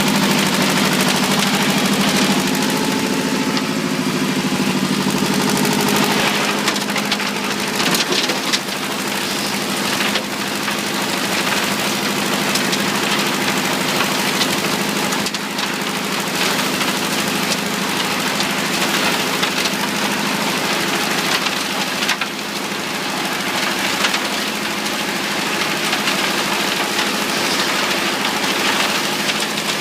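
RD 800 road-construction mixer working with a site truck: a steady engine drone under a constant rushing hiss, with one sharp knock about eight seconds in.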